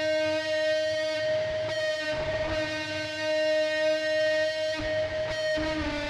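Instrumental music with long held notes that change pitch near the end.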